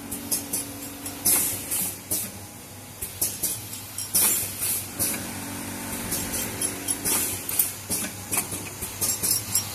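Four-side-seal liquid sachet packing machine running: rapid, irregular sharp clicks and hissy strokes from its sealing and cutting mechanism over a steady low hum.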